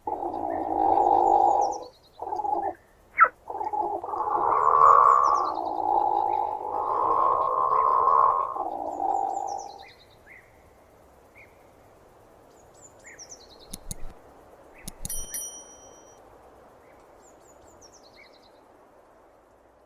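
Platypus growling in long stretches with a few short breaks, stopping about halfway through. Faint bird chirps follow, with a couple of clicks.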